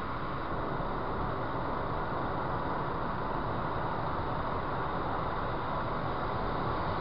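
Steady road and tyre noise with engine hum of a car cruising at motorway speed, heard from inside the cabin, with a faint steady high whine.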